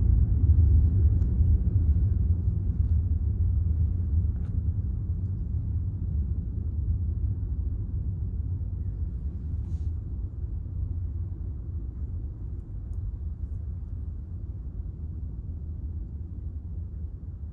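Minka Aire Kewl ceiling fan coasting down after being switched off: a low rumble of the turning blades and their air that fades gradually as the fan slows.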